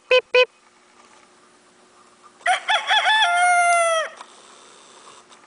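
Silver Gray Dorking rooster crowing once, about two and a half seconds in: a few quick choppy notes, then a long held note that drops off at the end. Two short sharp calls come right at the start.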